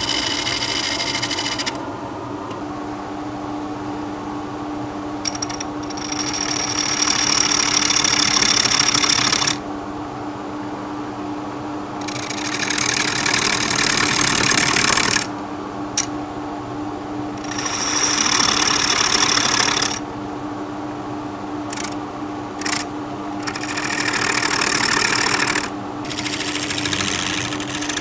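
Wood lathe spinning a large oak platter blank with a steady hum, while a turning tool cuts into the wood in about five separate passes of two to four seconds each, every cut much louder than the hum.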